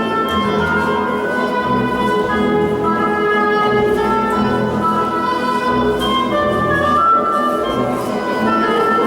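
Orchestral polonaise music playing over loudspeakers for ballroom dancing, with melodic lines held over a steady accompaniment.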